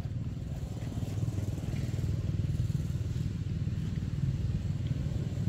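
A steady low rumble, like a motor running.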